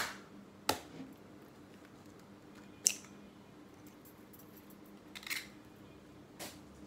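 An egg cracked against the rim of a bowl: two sharp knocks less than a second apart, then a few lighter clicks as the shell is broken open and dropped into a small ceramic bowl.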